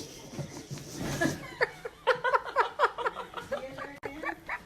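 A person laughing in a quick run of short chuckles, several a second.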